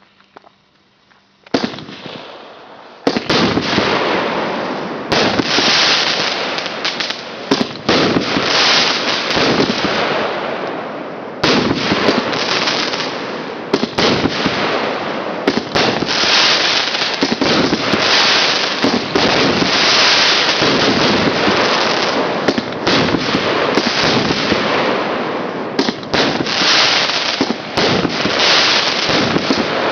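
A 25-shot consumer fireworks cake (SU 25) firing shot after shot: loud, continuous hissing with many sharp cracks, starting about a second and a half in and reaching full strength about three seconds in.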